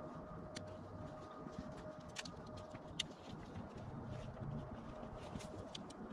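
Scattered light clicks and rustles from a dome tent being put up: its plastic clips being snapped onto the poles. One sharper click comes about three seconds in, over a low rumble and a faint steady tone.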